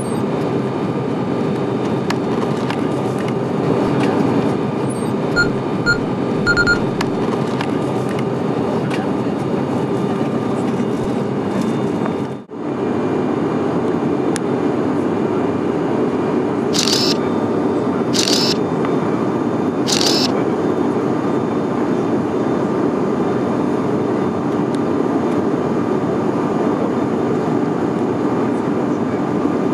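Steady drone of an airliner cabin in flight: engine and airflow noise. It breaks off for a moment about twelve seconds in. There are a few short high pips around six seconds and three short hisses between about seventeen and twenty seconds.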